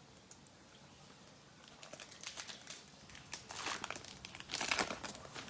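The foil wrapper of an NBA Hoops trading-card pack being torn open and crinkled by hand: a run of crackly tearing and crinkling starting about one and a half seconds in, loudest near the end.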